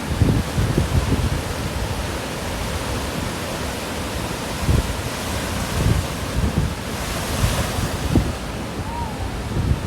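Rough surf from a typhoon swell washing and breaking, with strong onshore wind buffeting the microphone in repeated low gusts.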